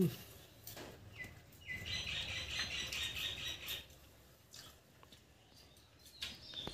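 A bird calling in a fast, even run of chirps lasting about two seconds, starting after a short single note about a second in.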